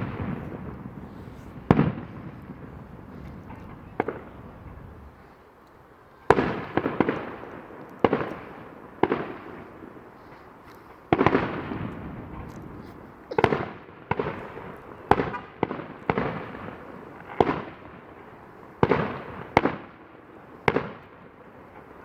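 Fireworks display: aerial shells bursting one after another, each a sharp bang trailing off in a rumbling echo, about a dozen through the stretch with a brief lull near the start and a dense run of bangs in the second half.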